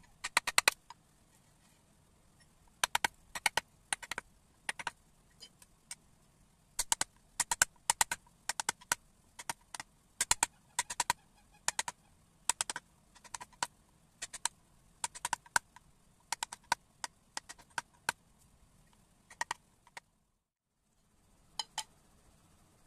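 Mallet blows driving a carving chisel into a wooden board: sharp knocks, mostly in quick groups of two to four, repeating every second or so.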